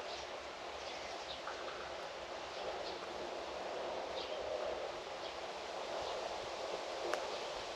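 Outdoor farm ambience: a steady rustling hiss, like wind through leaves, with short faint bird chirps now and then and one sharp click near the end.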